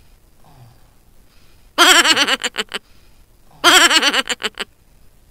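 A high, giggling laugh heard twice, about two seconds apart. Each laugh starts with a drawn-out wavering note and breaks into a few short chuckles that fade, and the two are alike enough to be the same laughing sound effect played twice.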